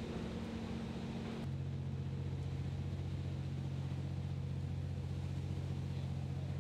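Ship's engines running with a steady low drone. The drone changes abruptly about one and a half seconds in to a deeper, even hum.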